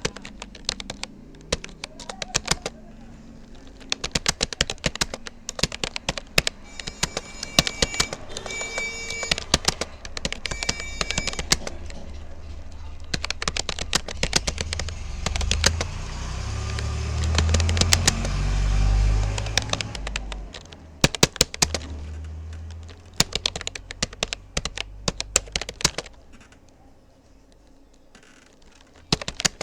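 Typing on a Rapoo computer keyboard: quick runs of keystroke clicks, stopping for a few seconds near the end. A low rumble swells and fades in the background partway through.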